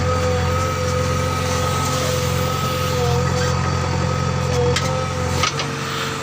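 Heavy diesel earthmoving engine running steadily, with a steady whine over it. A few short clanks come about five seconds in, and the engine's deep hum drops away just after.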